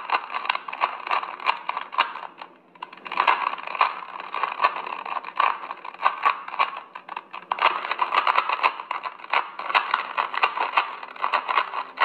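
Plastic 3x3 Rubik's Cube being turned quickly by hand: a rapid run of clicks and clacks as its layers snap round, with a short lull about two and a half seconds in.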